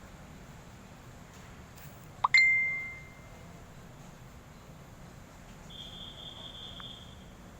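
A single bright bell-like ding: a sharp click, then a ring that fades over about a second. A faint high chirping follows a few seconds later.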